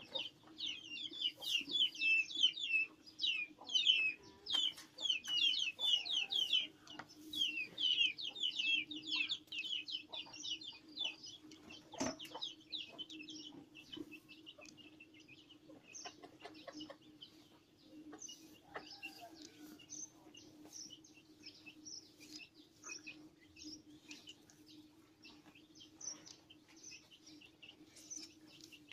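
Small birds chirping in rapid series of short falling chirps, busiest in the first ten seconds and sparser afterwards, over a steady low hum. A sharp knock about twelve seconds in.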